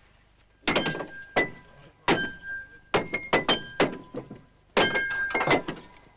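Hammers striking steel on a railway track as a gang spikes rail. The result is a quick, irregular run of sharp metallic clanks from several men working at once, many of them ringing briefly.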